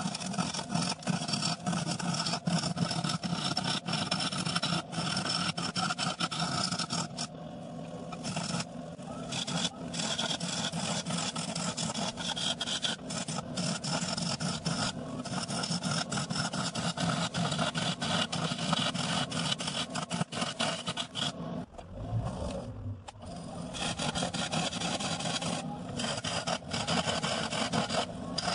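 Manrod 1218 benchtop wood lathe running with a large wooden blank spinning, a turning gouge cutting into the wood: continuous scraping of the tool on the wood over a steady motor hum. The cutting eases briefly about seven seconds in and again a little after twenty seconds.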